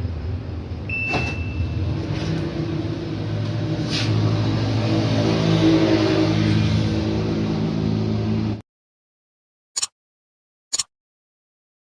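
Repaired automatic washing machine in its spin cycle: a steady motor and drum hum that swells a little midway, then cuts off abruptly after about eight and a half seconds. A brief high tone sounds about a second in, and four short blips follow the cut.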